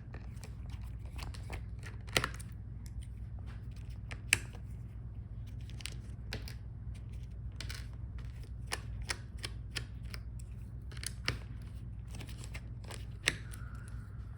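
Scattered light clicks and taps of a small screwdriver and screws on a laptop's hinge area as the screen hinges are unscrewed, over a steady low hum.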